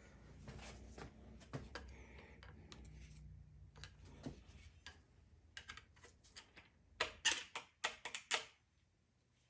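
Small sharp clicks and metallic taps of hand tools working on a connecting-rod cap of a Chevy 350 V8, with a quick run of louder clicks about seven seconds in. A faint low hum sits under the first few seconds.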